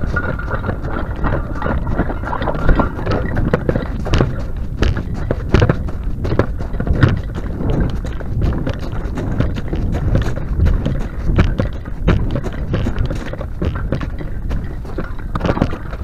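Quick, irregular footsteps crunching on gravel over a low rumble, with a faint steady whine in the first few seconds.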